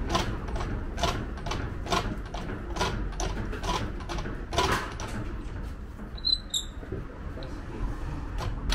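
A heavy Heidelberg OHT platen press is being nudged along on a wooden pallet on caster dollies: a regular knocking creak about once a second, dying away about five seconds in, followed by a few short high squeaks.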